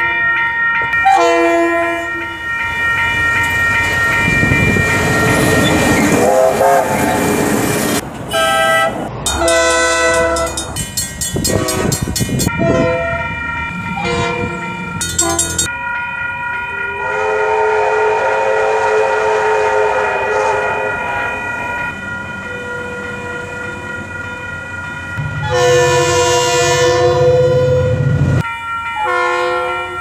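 DFB-class diesel locomotives sounding their air horns in a series of held blasts, with the noise of a train passing close by and its wheels clicking over the rail joints.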